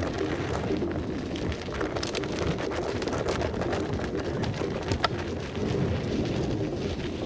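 Trail noise from riding an electric unicycle along dirt forest singletrack: wind rushing on the mic and a steady rumble, with many small clicks and crackles from the tyre over dirt, roots and twigs.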